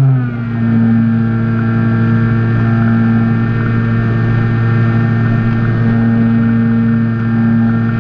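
Electric motor and propeller of a Skyhunter FPV model plane, heard from its onboard camera, running with a steady buzzing hum. Right at the start the pitch drops a step as the throttle eases back, then holds steady.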